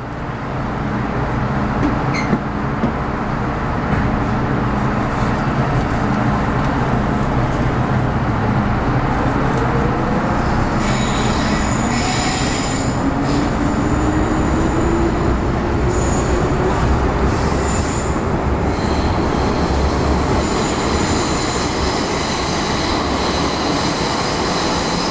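Metro Cammell EMU (M-Train) motor car running on the line, with dense steady running noise and a motor whine rising slowly in pitch as it gathers speed. Brief high-pitched wheel squeal comes in twice, about halfway through and again a few seconds later.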